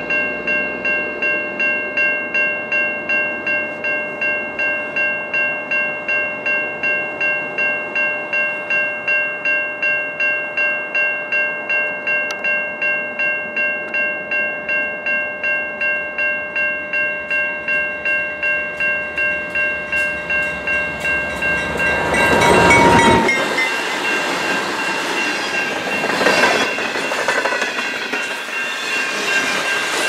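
Freight locomotive's bell ringing steadily at about two strokes a second as the train approaches. About 22 seconds in, the locomotives pass with a loud rush and the bell's pitch drops. Autorack freight cars then roll by with a steady rumble and clatter of wheels on the rails.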